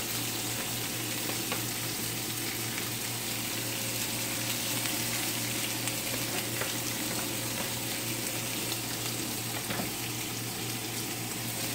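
Salmon steaks sizzling steadily in an oiled ridged grill pan.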